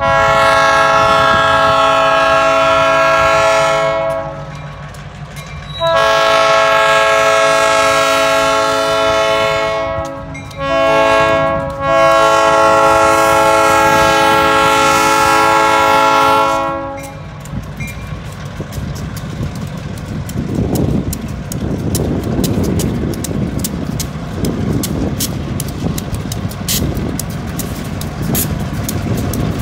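Diesel freight locomotive's air horn sounding the grade-crossing signal: two long blasts, one short and one long. After the horn stops, the train's engines rumble closer with a rapid clicking as it reaches the crossing.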